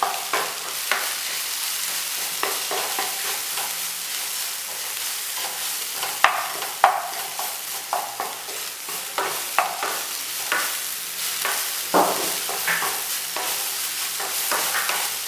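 Vegetable cutlet masala frying in oil in a pan, with a steady sizzle, while a spoon stirs it, scraping and knocking against the pan many times.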